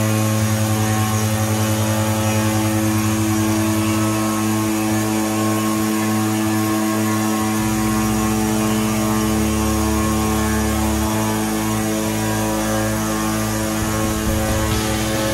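Denver Quota CNC stone router's spindle driving a water-cooled segmented tool along the edge of a stone slab: a steady whine of several pitches over the hiss of grinding and spraying coolant, with the low rumble shifting a few times as the cut goes on.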